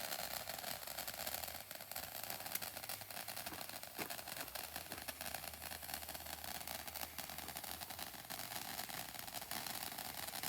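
Handheld firework fountain burning, a steady hiss of spraying sparks with faint crackles.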